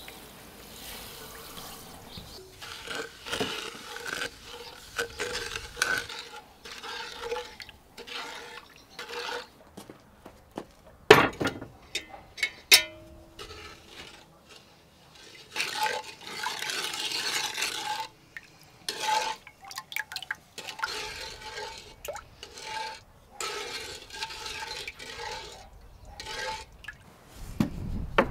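Cooking and handling sounds: sugar poured into a cast-iron pot of dandelion infusion, then work at the pot with clinks and a few sharp knocks. Near the end comes a wooden knock as a wooden frame is handled on a plank table.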